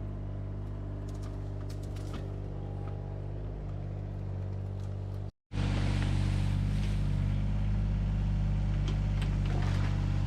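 Mini excavator engine running steadily while it digs out a ditch, with a few faint clicks and knocks. The sound cuts out for a moment about five seconds in, then comes back louder.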